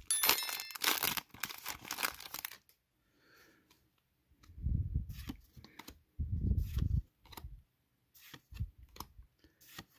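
Foil wrapper of a Pokémon booster pack being torn open and crinkled for about two and a half seconds. Quieter card handling follows: light clicks, and twice a dull low thump-like rumble.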